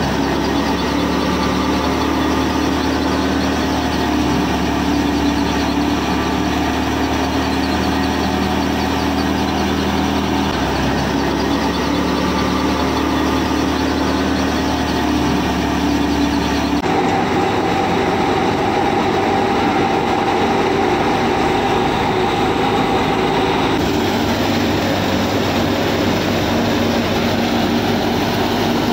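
Home-built miniature wheat thresher running: its small motor and spinning pulley give a steady mechanical hum and whir. The pitch and tone change abruptly a few times.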